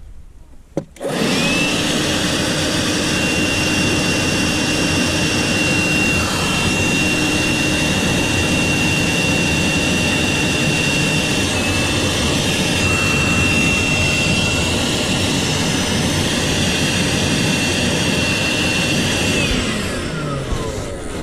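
Leaf blower blowing air into a rock-crevice den to flush out a mink. It starts about a second in with a rising whine, runs steadily, and winds down near the end as the whine falls away.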